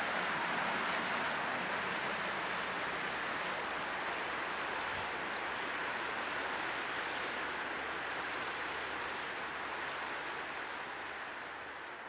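Steady rushing hiss of splashing water from a small fountain-type geyser erupting, easing slightly toward the end.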